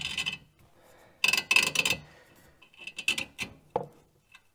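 Rear parking brake cable being worked into its hole at the suspension arm: a few short scrapes and clicks as the cable end and a tool rub against the metal.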